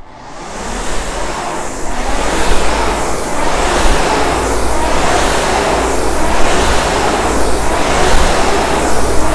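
Concept2 RowErg's air-resistance flywheel whooshing as it is spun up from a standstill in a racing start. The whoosh swells over the first couple of seconds, then surges with each stroke at about forty strokes a minute.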